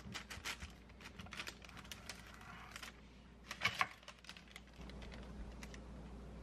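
Serrated bread knife sawing through a sponge cake roll on crinkly parchment paper: a run of crisp, scratchy crackles, then a louder crackle about three and a half seconds in.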